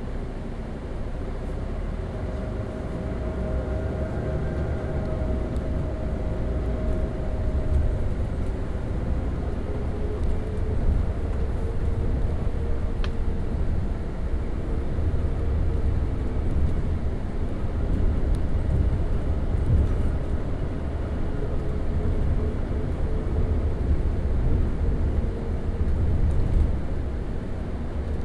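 Double-decker bus engine running under way, a heavy low rumble with a faint whine that comes and goes. It grows louder over the first several seconds.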